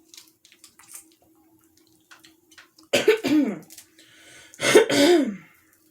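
A woman coughing hard twice, a few seconds in and again about a second and a half later, each cough voiced with a falling pitch. She is trying to clear sauce that went down the wrong way.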